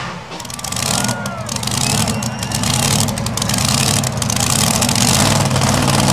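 Super modified two-wheel-drive pulling truck's engine idling at the end of its pull, just off full throttle.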